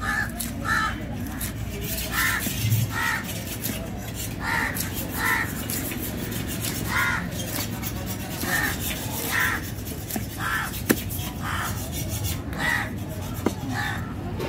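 Crows cawing over and over, short harsh calls about once or twice a second. A few sharp knocks near the end come from a knife chopping seer fish steaks on a wooden block.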